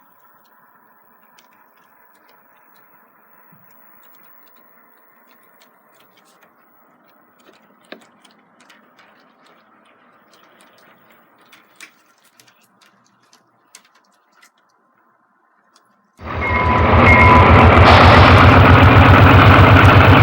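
A model train running faintly on its layout: a steady thin motor hum with scattered light clicks of the wheels on the track. About sixteen seconds in, loud guitar music starts suddenly and drowns it out.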